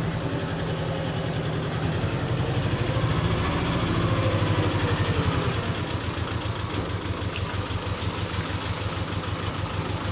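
Small wheel loader's engine running close by, with an even, steady beat. It gets a little louder about two seconds in and eases back after about five seconds, as the bucket is worked over the trench.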